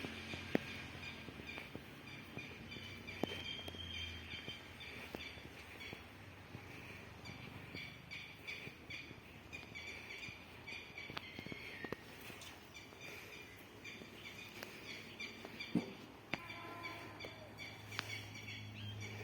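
Birds chirping steadily, with a few scattered clicks and knocks.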